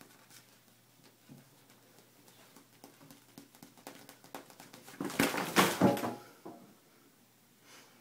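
A kitten pouncing at a plastic shower curtain: light scattered taps and scrabbles, then a loud burst of crinkling, rustling plastic lasting about a second, a little past halfway.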